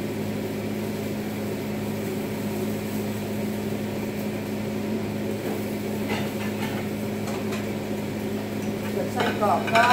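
Steady low electric hum of a kitchen fan, the vent fan of an over-the-stove microwave, with a few faint light clicks about six seconds in.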